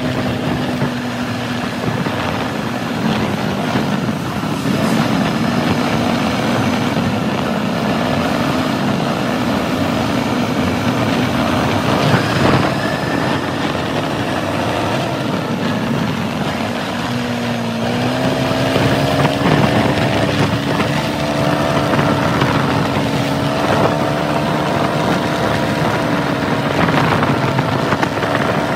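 Kymco MXU 300 quad's engine running while riding, over a steady haze of wind and road noise. About two-thirds of the way through, the engine's drone comes out clearly and climbs slightly in pitch.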